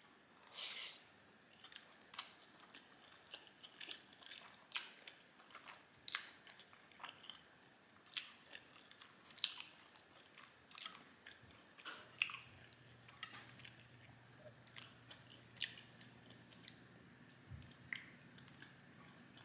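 Close-up mouth sounds of someone chewing Korean black bean noodles: irregular wet smacks and clicks about once a second, with a longer, louder wet sound about half a second in.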